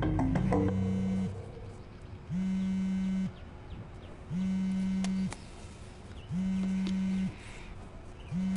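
Mobile phone vibrating with an incoming call: a low, steady buzz about a second long, repeating every two seconds, five times. Background music fades out in the first second.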